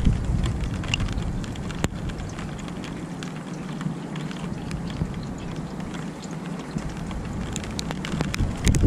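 Steady rain falling, with individual drops ticking close by. A gusty low rumble of wind buffeting the microphone eases off a few seconds in and comes back strongly near the end.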